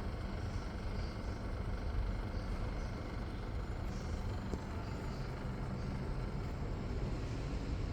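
Split air conditioner running: a steady low rumble with an even hiss above it.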